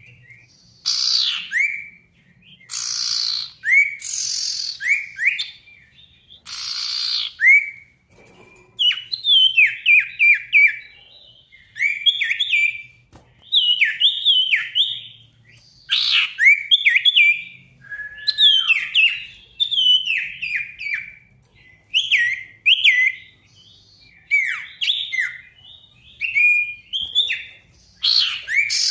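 A sirtu songbird singing energetically in quick phrases of short, sliding whistled notes. In the first few seconds the phrases are broken by several harsh, hissing notes. This is the loud, full song ('gacor') used as a lure to provoke a quiet sirtu into answering.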